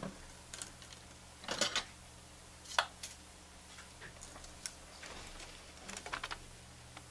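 Scattered small clicks and light taps of tools being handled on a workbench, over a faint steady low hum.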